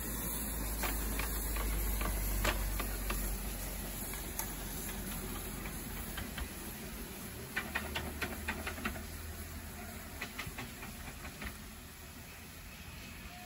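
5-inch gauge live-steam model of a Highland Railway Loch Class locomotive running away along its track, steam hissing, with a scatter of sharp clicks that are thickest about eight seconds in. The sound fades as it goes.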